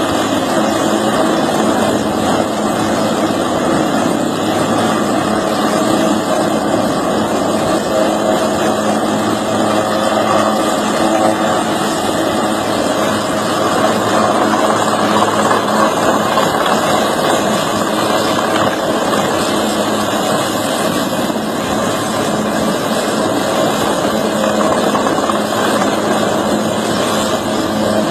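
Helicopter engine and rotor running steadily, a loud continuous noise that holds constant throughout.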